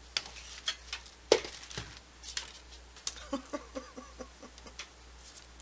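Irregular clicks and light knocks of small objects being handled and set down on a desk, with the sharpest knock about a second in. Near the end comes a quick run of about eight short pitched chirps.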